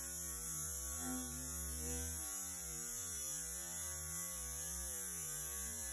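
Cruise ship vacuum toilet flushing, its sound slowed down with the slow-motion picture into a low, steady hum that wavers slowly in pitch, with a steady hiss above it.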